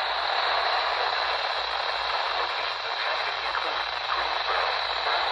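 Steady static hiss from a NOAA Weather Radio receiver tuned to WXL42, the sign of a signal too weak to come through.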